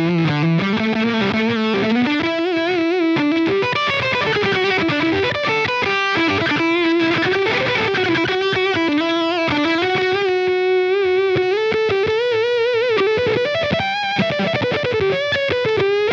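Distorted electric guitar played through the Line 6 Pod Go's fuzz pedal and Placator Dirty amp model (a Friedman simulation), playing a lead melody of long sustained notes with vibrato and bends. The tone is creamy, with a great deal of sustain.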